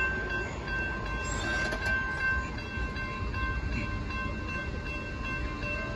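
Railroad crossing bell ringing with steady, evenly pulsing high tones, over a low rumble from the approaching freight train.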